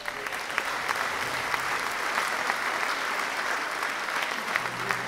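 Audience applauding: many people clapping together in a dense, steady applause.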